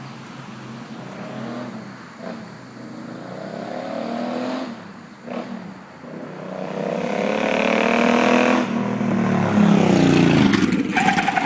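Suzuki Boulevard C50T's V-twin engine revving in repeated blips. The revs build and get louder toward the end, then fall away.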